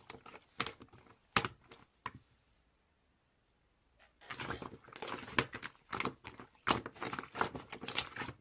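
Slime being squeezed and pressed by hand, making crackling clicks and pops, with a pause of about two seconds in the middle.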